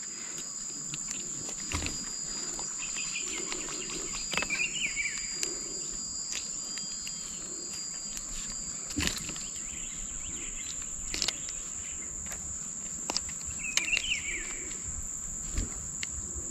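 Steady high-pitched insect drone, with short chirping calls twice and a few faint clicks and knocks.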